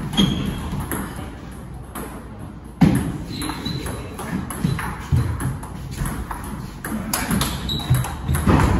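Table tennis rally: a celluloid ball clicking off rubber paddles and bouncing on the table, a string of short sharp ticks about every half second, the loudest about three seconds in.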